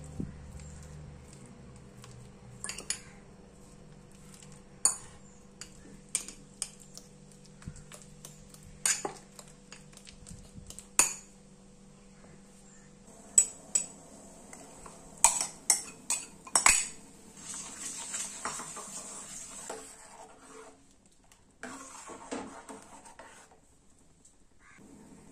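A metal fork mashing bananas in a ceramic bowl, clinking sharply and irregularly against the bowl. Later, a spoon stirs a watery mashed-banana mixture in a steel pan, with a steady scraping, sloshing sound.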